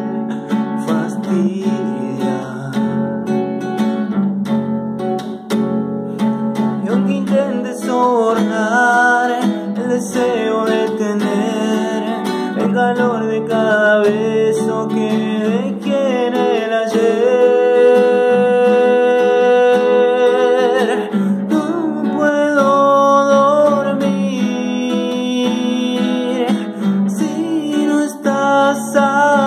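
Classical guitar played with strummed and picked chords, and a man's voice singing a melody over it, holding one long wavering note in the middle.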